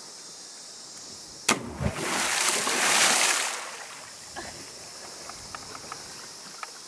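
A person jumping from a boat's upper deck into the sea: a sharp smack as he hits the water about a second and a half in, then a loud splash of falling water lasting about two seconds before it settles.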